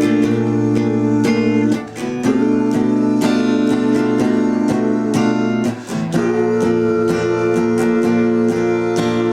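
Acoustic guitars strumming chords in a live band performance, the chord changing about two seconds and again about six seconds in.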